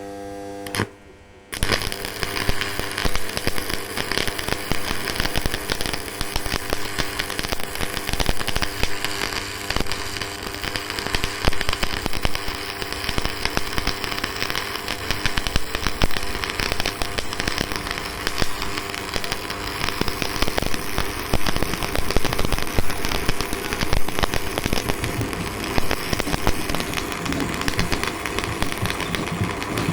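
Electric arc welding on a galvanized iron pipe. A short hum comes first, then about a second and a half in the arc strikes and crackles steadily, a dense sizzle of fine pops.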